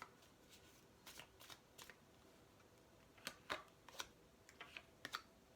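A deck of tarot cards being shuffled by hand: faint, scattered card flicks and snaps, with a cluster of sharper snaps from about three seconds in.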